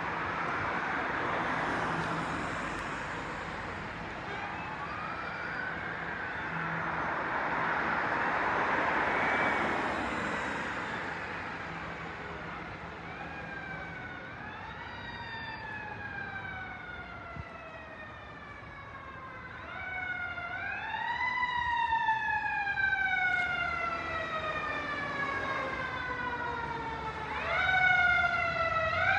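Fire department emergency vehicle siren approaching: a wail that climbs quickly and then slides slowly down in pitch, over and over, growing louder in the last ten seconds, over street traffic noise.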